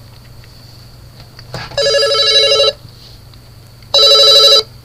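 A telephone ringing with an electronic warbling trill: two rings about two seconds apart, each a little under a second long.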